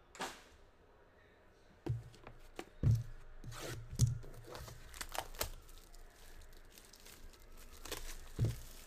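Plastic shrink-wrap crinkling and tearing as it is stripped off a Panini One football card box, mixed with several dull thumps of the box against the table.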